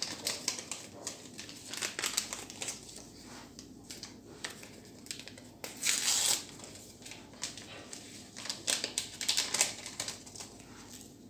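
Crinkling and tearing of small paper packets of baking powder and vanilla as they are opened and emptied over a bowl of flour, with a louder crackle about six seconds in.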